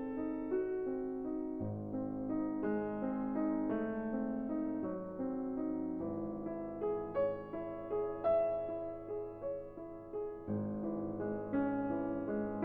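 Background music: a gentle piano melody with notes struck one after another.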